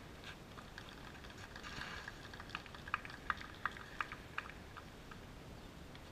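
A tennis ball bouncing, about six light, sharp taps at roughly three a second, then stopping.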